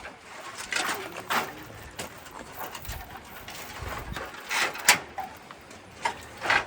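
Poultry calling softly, with several short scuffing sounds.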